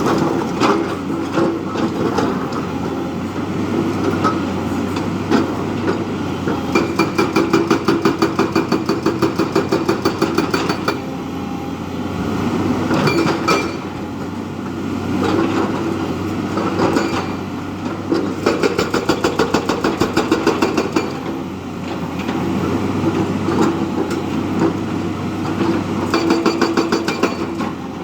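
Heavy diesel engine of working earth-moving machinery running steadily, with several stretches of rapid, even pulsing knocks: about a quarter of the way in, again past the middle, and near the end.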